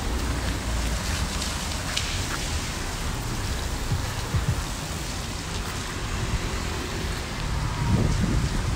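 Rain falling steadily, with wind gusting on the microphone near the end.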